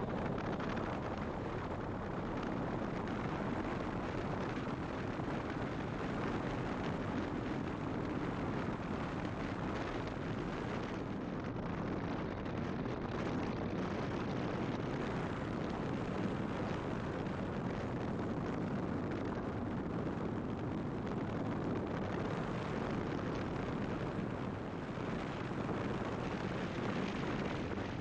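Riding noise from a Honda ST1300 touring motorcycle on the move: a steady rush of wind on the microphone over engine and road rumble, with no change in pace.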